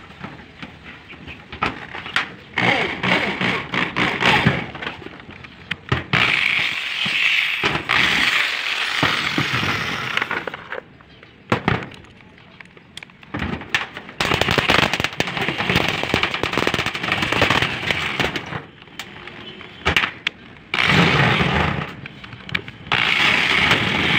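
Corded electric drill driving self-drilling tek screws through a corrugated galvanized iron roof sheet into steel tube purlins. The screws go in over several runs of a few seconds each, with short pauses between them.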